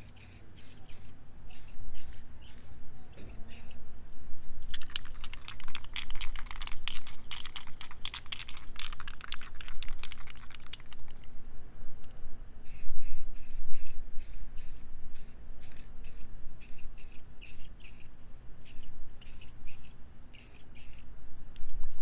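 Aerosol spray-paint can being shaken, its mixing ball rattling in quick clicks that come thickest from about five to eleven seconds in, with wind rumbling on the microphone.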